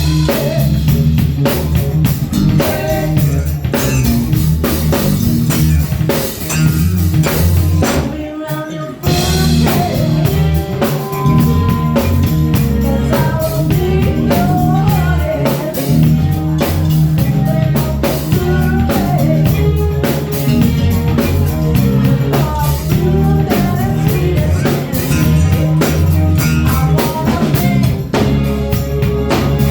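Band music with drum kit, guitar and a singing voice over a steady beat, with a short break about eight seconds in before the band comes back in.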